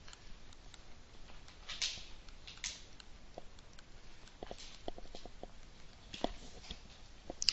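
Faint scratches and light taps of a stylus writing by hand on a tablet screen: a few short strokes, then a run of small ticks.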